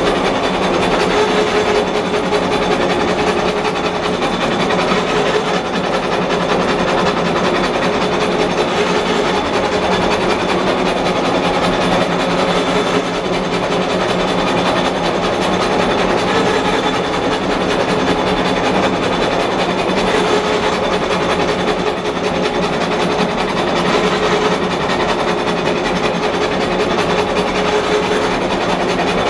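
5D32 gear hobbing machine running under cut, its worm hob cutting the teeth of a helical shaft-gear. A steady, dense machine clatter with a faint hum underneath.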